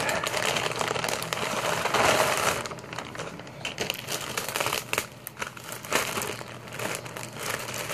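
Tissue paper and a clear plastic bag crinkling and rustling as they are handled and pulled open. The crinkling is denser for the first two or so seconds, then softer and more scattered.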